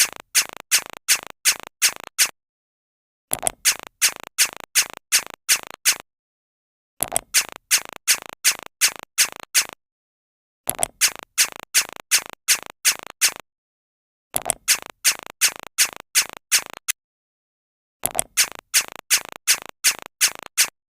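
A looped sound effect: a burst of sharp, evenly spaced strokes, about three a second for two to three seconds, then about a second of silence. The same burst repeats six times.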